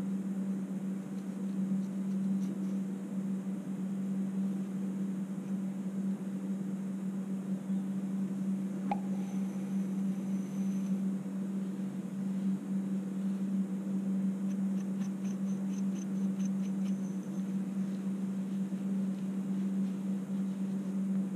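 A steady low hum, with one sharp click about nine seconds in and a run of faint quick ticks a few seconds later.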